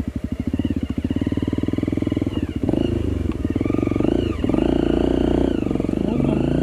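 Trail motorcycle engine running at low revs with distinct firing pulses, then revving up and down repeatedly from a few seconds in as the bike is ridden over rough ground.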